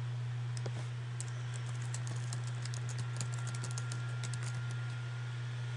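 Typing on a computer keyboard: a quick run of key clicks from about half a second in until near the end, entering a new password. A steady low hum runs underneath.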